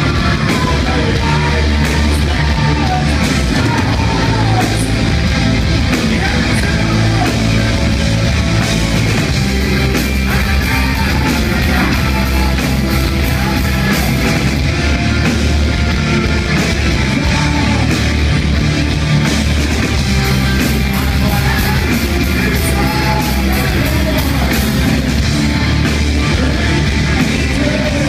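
Heavy metal band playing live: distorted electric guitar, bass guitar and drum kit, with a singer's vocals over the top.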